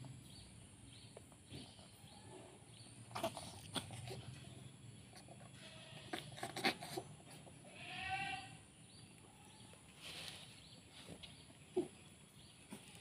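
A sick kitten gives one drawn-out, wavering mew about eight seconds in, among a few faint clicks and knocks. The kitten is having hiccup-like spasms and gagging, which its owner fears come from poisoning.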